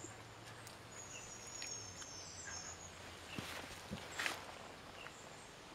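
Quiet woodland ambience with faint, high, thin birdsong in the first half, and a couple of faint clicks about three and a half and four seconds in.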